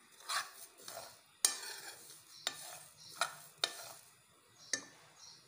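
Metal spoon stirring and scraping cumin and coriander seeds as they dry-roast in a metal frying pan: a run of short rattling sweeps, roughly one a second, the loudest about one and a half seconds in.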